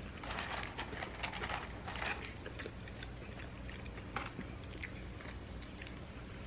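Two people chewing and biting fast food, curly fries and a toasted turkey and Swiss sandwich, with small mouth clicks, busiest in the first couple of seconds.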